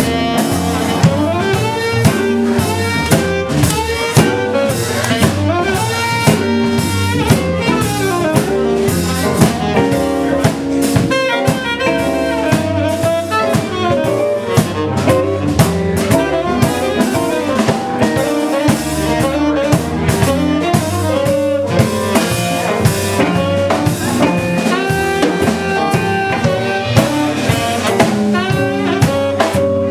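Live band music with a steady drum beat under dense pitched instruments.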